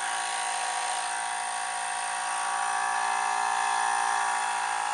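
Small battery-powered air compressor running steadily, a high motor whine, as it inflates a bicycle-type inner tube in a 16-inch wheel.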